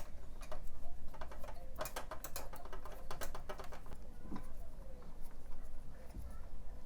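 An irregular run of small, sharp clicks and light taps, like small hard parts and hand tools being handled on the PS4 during the repair. The clicks come thickest in the middle.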